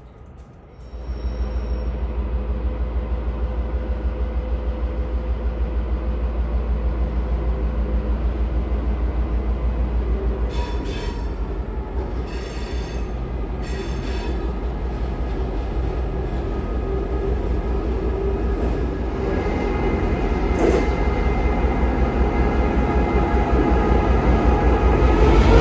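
Ex-Victorian Railways X class diesel-electric locomotive X54 running as it rolls slowly along the platform: a deep, steady pulsing engine rumble that comes in abruptly about a second in and grows louder as the locomotive draws close. There are three short high-pitched bursts midway, and a thin high wheel squeal in the last few seconds.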